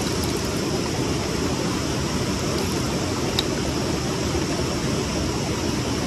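Rushing water of a fast mountain river, a steady, even roar, with a single small click about three and a half seconds in.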